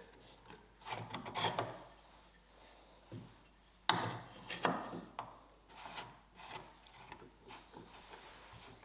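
A hand tool scraping and rubbing across wood in a few strokes. Two main strokes of about a second each, the second starting with a sharp knock about four seconds in, then shorter, fainter ones.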